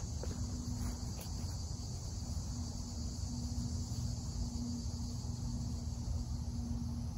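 Steady high-pitched buzzing of a summer insect chorus, with a low rumble and a faint low hum that comes and goes underneath.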